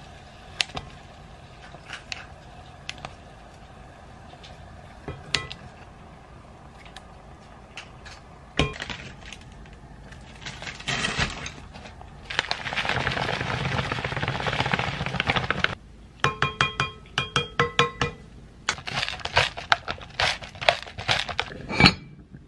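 Cooking at a simmering pot: scissors snip raw chicken breast with scattered sharp clicks, a few seconds of steady rushing noise come in the middle, and a pepper mill grinds in quick rhythmic clicks near the end.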